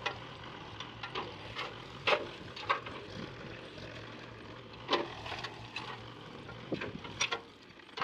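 Farm tractor engine running steadily while pulling a raised tipping trolley that is dumping manure, with irregular sharp knocks and rattles over the hum.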